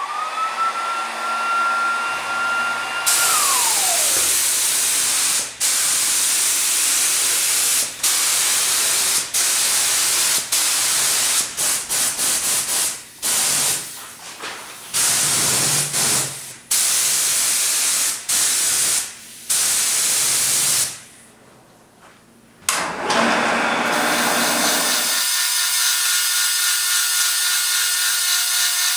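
A brief tone rises, holds and falls away. Then comes a steady hiss cut into many short stretches. From about 23 seconds in, a drill press runs steadily, its bit drilling into aluminum angle.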